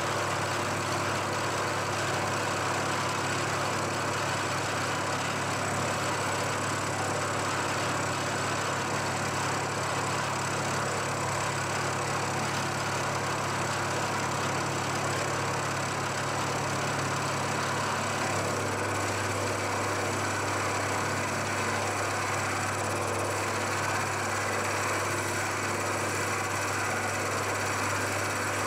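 Milling machine cutting steel with a 14 mm high-speed steel two-flute slot drill, a steady machining sound as the cutter feeds through the clearance slot for a screw head. The low hum changes slightly about two-thirds of the way through.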